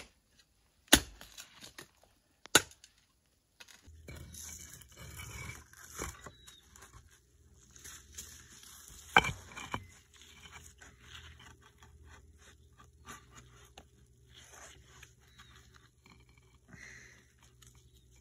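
A mattock striking hard into stony soil, three sharp blows in the first few seconds. Then scrapes, rustling and knocks of timber and concrete pavers being handled and set, with one louder knock about nine seconds in, over a low steady hum.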